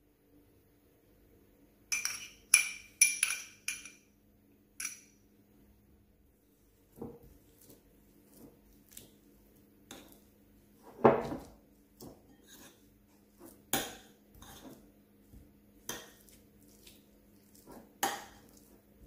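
Metal spoon clinking and scraping against a ceramic bowl while butter and herbs are mixed in it. A quick run of ringing clinks comes about two seconds in, then irregular taps and scrapes, the loudest about eleven seconds in.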